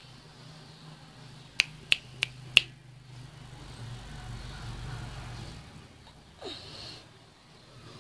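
Four sharp clicks in quick succession, about three a second, over a faint steady hum. A brief faint sound falling in pitch follows about six and a half seconds in.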